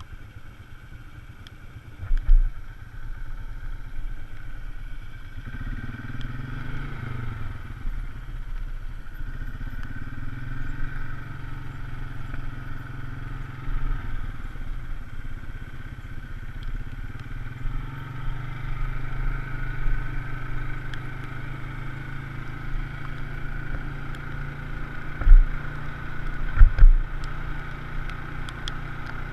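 Polaris RZR side-by-side engine running while riding a dirt trail, its pitch rising and falling with the throttle. There are occasional sharp low thumps, one about two seconds in and several near the end.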